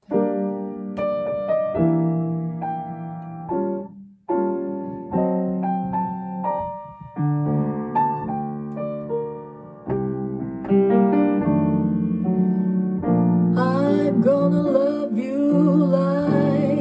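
Grand piano playing a jazz introduction of chords and single-note runs. A little past three-quarters of the way through, a woman starts singing over it with a wavering, vibrato voice.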